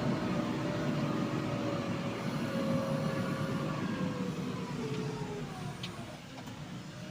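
Diesel engine of a JCB 3DX backhoe loader running under work, its tone slowly falling in pitch and the sound easing off in the second half as the revs drop.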